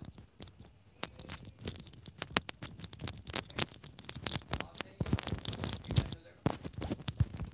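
Felt-tip marker scratching across a whiteboard in short, irregular strokes as the lines of a graph are drawn.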